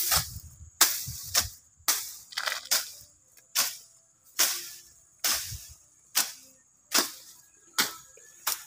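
Machete chopping through dense weeds and brush: about a dozen sharp slashing strokes, roughly one a second, each followed by a short rustle of cut stems.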